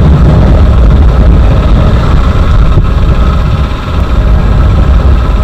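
Motorcycle riding at speed heard from the rider's action camera: steady wind rush and rumble on the microphone with the engine running underneath, easing briefly about four seconds in.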